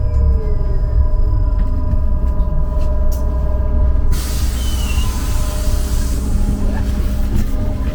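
Trolleybus running with a low rumble while its electric traction motor whine falls in pitch as it slows; about four seconds in a sudden hiss of compressed air starts and fades over a couple of seconds, from the air brakes or the pneumatic doors.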